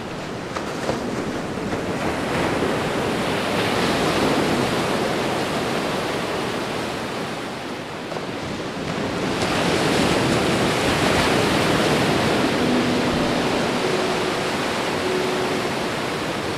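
Ocean surf washing and rushing, swelling twice like incoming waves. A few faint held musical notes come in near the end.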